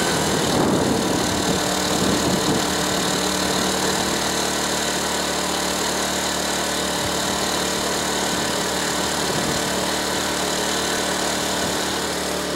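Champion 2000-watt inverter generator's single-cylinder four-stroke engine running steadily at full speed, econo mode off.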